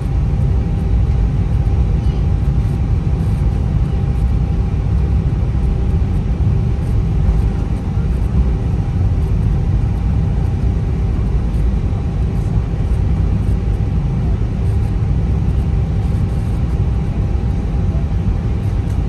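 Steady cabin noise inside an Airbus A320: a low rumble with a steady hum.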